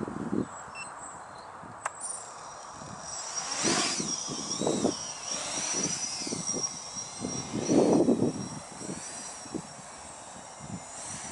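Small electric radio-controlled model car driving across a grass field: a high-pitched motor whine starts about two seconds in and rises and falls in pitch as it speeds up and slows, over irregular low rumbling.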